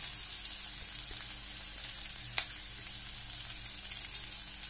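Freshly added chopped onions sizzling steadily in hot butter and oil in a stainless steel kadai, with one sharp click a little past halfway.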